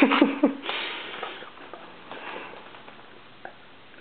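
A toddler drinking from a sippy cup: a short vocal sound at the start, then noisy breathing and sucking that fades away, with a few faint clicks later on.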